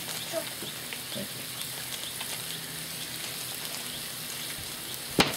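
Buttered buns and sliced chicken sizzling on a Blackstone flat-top griddle: a steady sizzle, with one sharp click about five seconds in.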